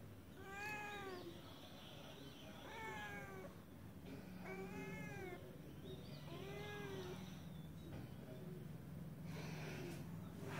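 Domestic cat meowing four times from behind a door, each call rising then falling in pitch, asking to be let into the room. A brief rustle near the end.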